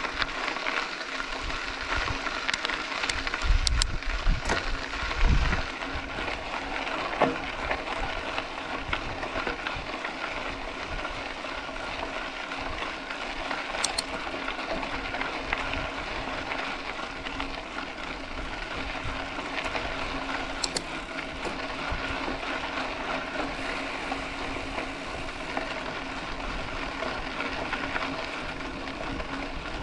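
Mountain bike rolling along a dirt road: a steady rush of tyre and wind noise, with a few scattered clicks and some low thumps on the microphone about four to five seconds in.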